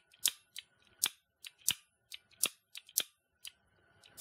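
Pistol-grip trigger torch sparker snapped over and over: sharp metallic clicks, a strong one about every three-quarters of a second with softer clicks between. Its flint is worn, which the owner takes to be why it does not make a spark every time.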